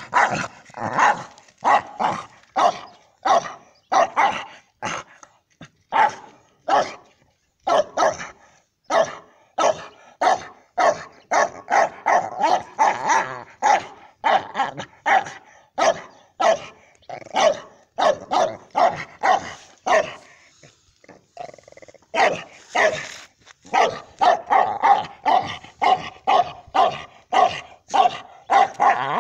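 Dog barking repeatedly in short sharp barks, about two a second, at a hedgehog rolled into a spiny ball. There is a short pause about two-thirds of the way through, then a faster run of barks near the end.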